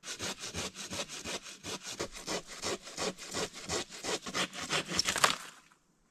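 Silky hand saw cutting through a dead, rotten fallen tree trunk in fast, even back-and-forth strokes, stopping about five and a half seconds in as the cut goes through.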